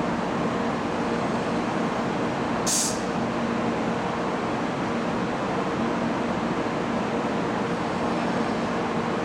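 Steady hum and rumble of a shinkansen station platform, with a faint constant tone running through it, as an N700-series train pulls away into the distance. A short sharp hiss comes about three seconds in.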